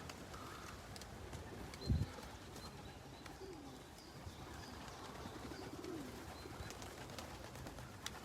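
Young racing pigeons cooing faintly, a few short falling coos, with a low thud about two seconds in.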